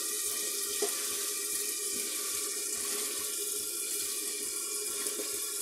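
Water running steadily from a tap, a continuous rushing hiss. Over it, a soft knock about a second in and another near the end, as sliced potato and brinjal are scraped into a steel pressure cooker.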